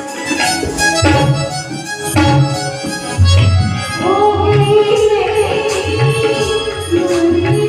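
Bhajan music: an electronic keyboard playing a reedy, harmonium-like melody over a steady hand-drum beat. The melody swells into a long held line about halfway through.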